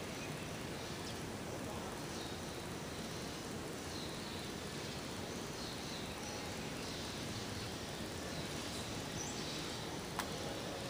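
Steady outdoor ambience: an even background hiss and rumble with faint high chirps of birds or insects recurring about every second. A single sharp click about ten seconds in.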